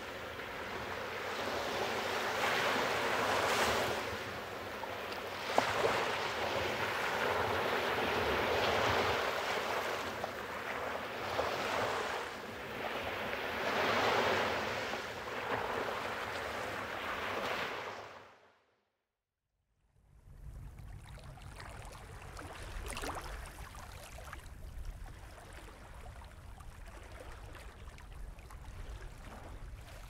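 Waves washing in, a rushing noise that swells and ebbs every few seconds. About two-thirds of the way through it fades out, and after a short silence a quieter, lower lapping of water takes over.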